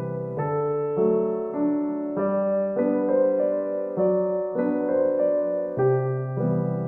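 Background music: gentle piano, chords struck about once a second over a slow bass line.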